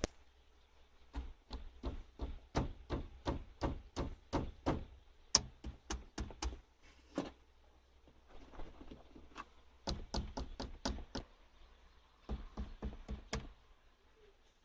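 Interior trim panel near a Toyota Corolla Rumion's rear woofer rattling and knocking in quick irregular bursts, three clusters over a low rumble, the jarring rattle heard when driving over bumps. The owner traced the noise to a single loose screw behind the panel.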